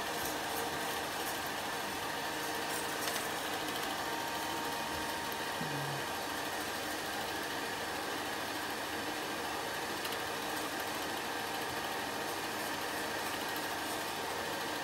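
8mm film projector running: a steady mechanical whir.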